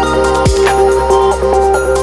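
Electronic background music with a steady bass, held synth notes and a heavy kick-drum beat.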